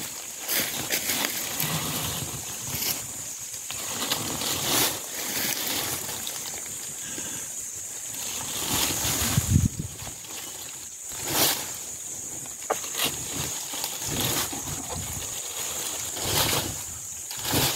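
A Komodo dragon swallowing a whole wild hog: irregular rustling, scraping and wet gulping noises as it shifts its body and the carcass in dry leaf litter, with a few louder bursts. A steady high-pitched drone runs underneath.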